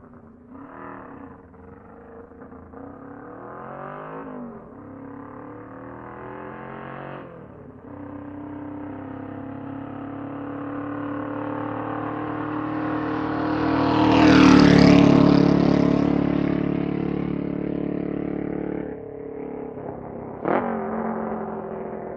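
Motorcycle engine revved briefly three times, then accelerating and passing by, loudest about two-thirds of the way through, its pitch dropping as it moves away. A quick sharp rev comes near the end.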